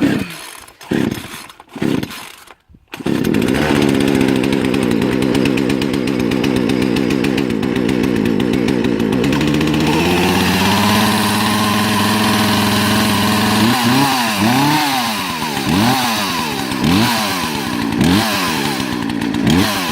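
Two-stroke gas chainsaw pull-started cold on choke: a few short pulls, then the engine catches about three seconds in. It runs at a fast, uneven idle, settles to a steadier idle about ten seconds in, and from about fourteen seconds is blipped on the throttle roughly once a second, each rev rising and falling.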